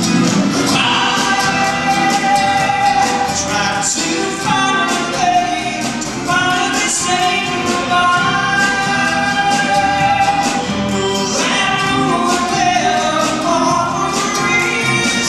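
Live acoustic guitar backed by a symphony orchestra's violins and strings, heard as an audience camcorder recording in a concert hall.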